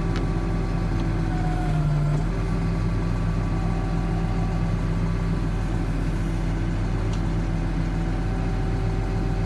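Tractor engine running steadily at a constant speed, heard close from the operator's seat.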